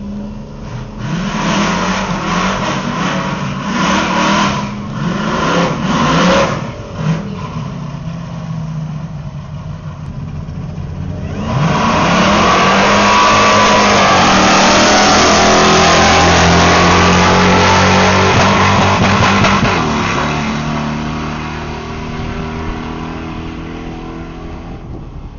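Supercharged 5.4-litre V8 of a 2003 Ford Lightning pickup revving in short bursts on the start line. About eleven seconds in it launches and runs at full throttle down the drag strip, then fades away near the end.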